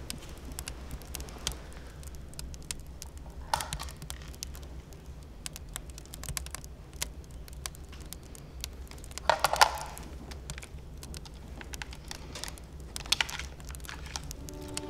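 Small scattered clicks and taps of a mobile phone being handled and tapped with the fingers at a table, with a few louder knocks about 3.5 s, 9.5 s and 13 s in, over a low steady room hum.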